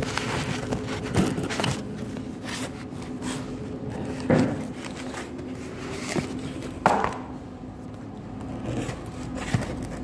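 Small plastic reagent bottles being handled and pulled from the foam-lined plastic case of a pH test kit: scraping and rubbing with a few sharp knocks, the loudest about four seconds in and again near seven seconds, over a steady low hum.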